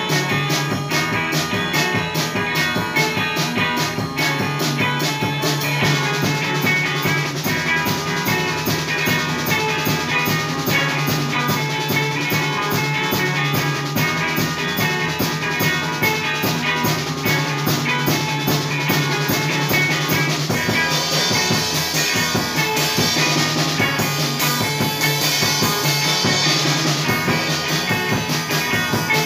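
Instrumental lo-fi rock: three layered electric guitar riffs running on a loop pedal over improvised drum kit playing with a steady beat. The top end grows brighter and hissier about two-thirds of the way through.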